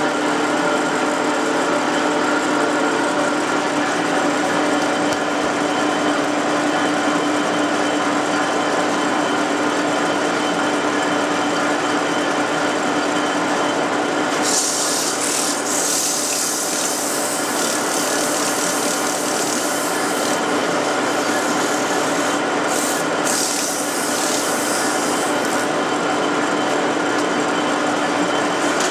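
Metal lathe running steadily with a constant hum. From about halfway, a hand tool is held against the spinning backing plate and makes a loud rasping hiss, with a couple of brief breaks, as the plate is dressed to fit the spindle taper.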